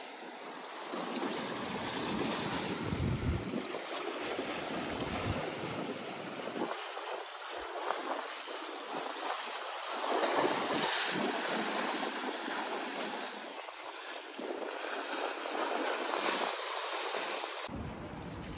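Sea surf breaking and washing over boulders on a rocky shore, a continuous hiss that swells and eases every few seconds; the waves are strong.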